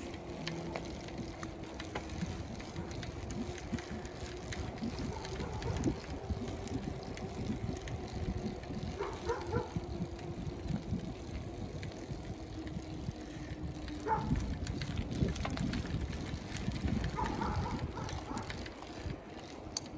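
Rumble of a bicycle ride on an asphalt street, mostly wind and movement noise on the microphone, with a steady hum that fades out about three-quarters of the way through.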